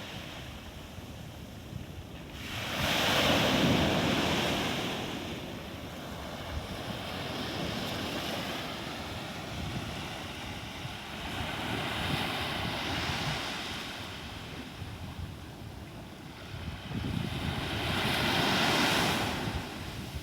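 Sea waves breaking and washing in, the surf swelling and falling back four times, with the loudest surges about three seconds in and near the end.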